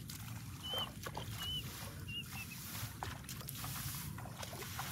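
Wet rice straw rustling and shallow water splashing lightly as straw piles are lifted and pulled apart. Four or five short high chirps come in the first half, one roughly every half second.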